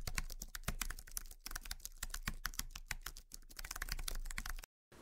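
Keyboard typing sound effect: a rapid run of key clicks that cuts off abruptly just before the end.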